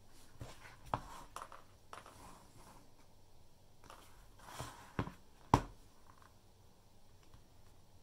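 Handling noise from a smartphone being picked up, held over a hardware wallet and set back down on a desk: a few light taps and knocks, the sharpest about five and a half seconds in.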